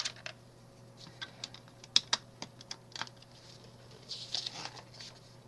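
Loose plastic LEGO bricks clicking as they are handled and picked from a parts tray: scattered light clicks, with a short rustle about four seconds in.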